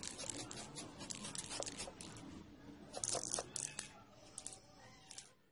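Adhesive tape being handled and pulled: a quick run of sharp crackles and tearing, loudest in a burst about three seconds in and thinning out near the end.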